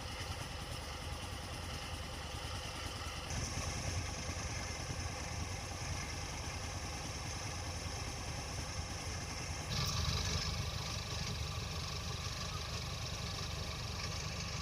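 Kubota DC105X combine harvester's diesel engine running steadily. It steps up louder, with more hiss, about three seconds in and again about ten seconds in. The machine has over 1,600 hours on it and its injection pump is said to still run smoothly.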